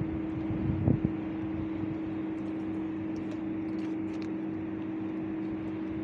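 A steady low mechanical hum holding two constant pitches, with a short louder knock about a second in and faint scattered clicks above the hum.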